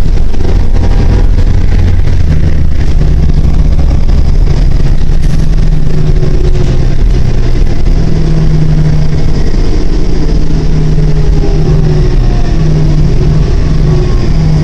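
New Flyer D40LF city bus's diesel engine and road noise heard from inside the cabin while riding: a loud, steady low drone with a hum whose pitch drifts slowly.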